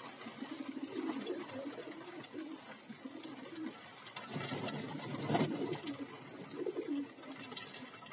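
Several fantail pigeons cooing over one another in low, repeated warbling calls. About halfway through a flurry of wing flapping rises over the cooing and is the loudest sound.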